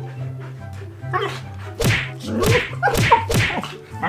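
Siberian huskies play-fighting, giving short yips and wavering vocal calls. About six sharp smacking hits fall through it, over a steady low background music bed.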